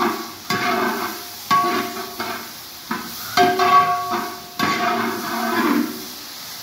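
A long metal ladle stirs a big batch of sliced onions frying in oil in a large aluminium pan. Every second or so it scrapes and knocks the pan, and the pan rings briefly at the same few pitches with each stroke.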